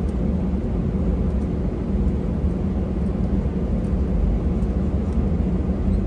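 Steady low rumble of engine and airflow noise inside a passenger airliner's cabin in flight.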